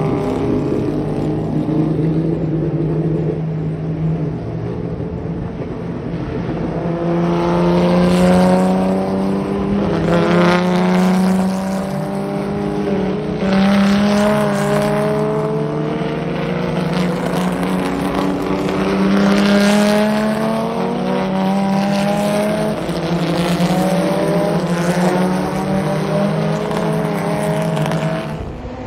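Chevrolet Opala race cars passing on the circuit, their engines accelerating hard. The pitch climbs and drops back over and over as the cars shift up through the gears, one car after another.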